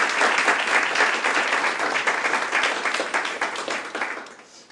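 Audience applauding, many hands clapping, the clapping thinning and dying away near the end.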